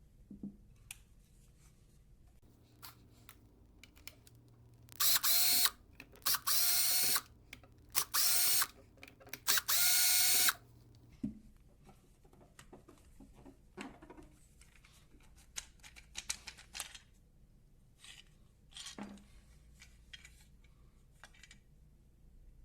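A small electric power tool runs in four short bursts, each spinning up quickly to a steady whine, with small handling clicks and knocks before and after.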